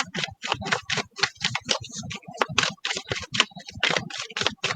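Tarot cards being shuffled by hand: a quick, uneven run of dry slaps and clicks, about five a second.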